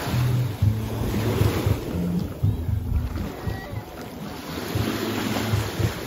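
Wind gusting on the microphone over small waves washing in shallow sea water, with a strong low rumble underneath that shifts between a few held pitches.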